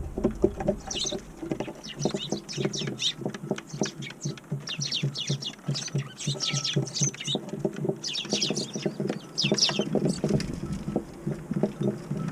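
Eurasian tree sparrows chirping in a near-continuous stream of short, falling calls, over many quick soft taps. A low wind rumble fades out in the first second or two.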